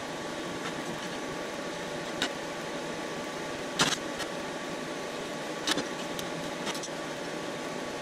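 Steady hum of shop machinery, with several sharp metal clanks as steel parts are handled on a steel welding table; the loudest clank comes near the middle.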